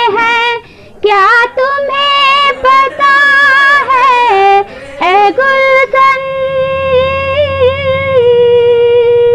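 A woman singing a Hindi film song solo, unaccompanied, with a couple of short breaks for breath. In the second half she holds one long steady note.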